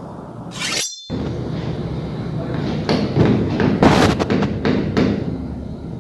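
A cluster of knocks and thumps over a steady background din, most of them between about three and five seconds in. The sound cuts out completely for a moment about a second in.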